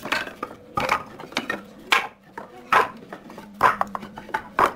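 Pine boards knocking and clattering against each other and the concrete floor as they are picked up and set down, about eight sharp knocks at uneven intervals.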